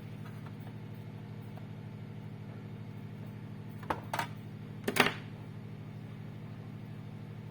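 Steady low electrical hum, with a few sharp clicks and a louder clatter about four to five seconds in, like parts or tools being handled on a bench.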